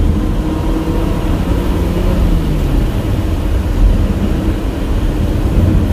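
Car engine and tyre-on-road noise heard from inside the cabin while driving: a steady low drone, with the engine note dropping slightly about two seconds in.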